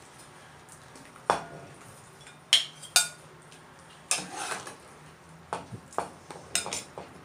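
A ladle knocking and scraping against a cooking pot and a ceramic bowl as soup with crab and vegetables is served: a series of sharp clinks and knocks, a couple with a short ring, and a brief splash of broth about four seconds in.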